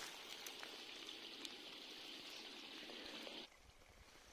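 A small stream trickling steadily. It cuts off abruptly near the end, leaving only a fainter background.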